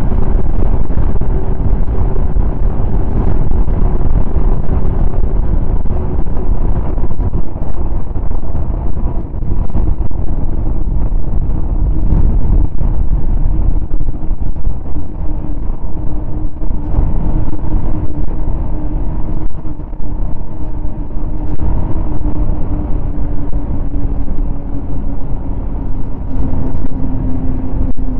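Snowmobile running at speed over snow, its engine note sinking slowly in pitch toward the end as it eases off, over a loud low rumble.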